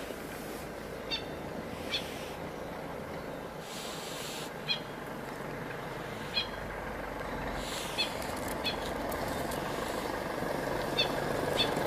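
Steady low running noise of an idling vehicle engine, with short high chirps every second or two.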